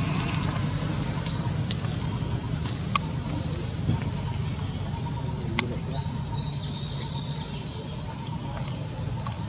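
Outdoor background: a steady low rumble, like distant traffic, under a steady high hiss, with three sharp clicks about three, four and five and a half seconds in.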